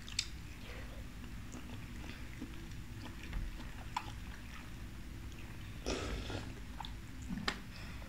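Quiet eating sounds: a woman chewing a piece of oden, with a few faint clicks and a brief hiss about six seconds in.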